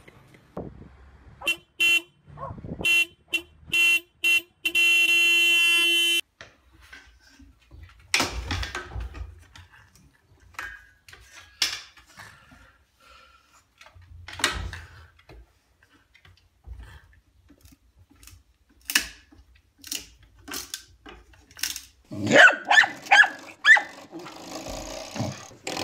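Mixed sounds: a run of short, pitched, horn-like toots in the first few seconds, the last held about a second, then scattered knocks and clicks. Near the end a dog makes short, repeated pitched cries.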